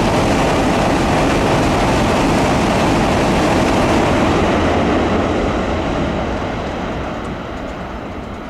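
Tokaido Shinkansen bullet train crossing the Sagami River bridge at high speed: a loud, even rush of noise that holds for about five seconds, then fades as the train draws away.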